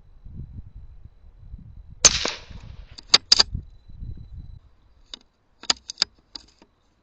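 A single .17 HMR rifle shot from a CZ 452 bolt-action rifle about two seconds in, with a short tail of echo. Quick sharp clicks follow about a second later, and a few more near the end.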